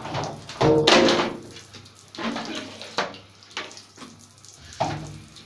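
Tap water running and splashing as plastic vacuum cleaner parts are rinsed, with a few knocks of the parts being handled.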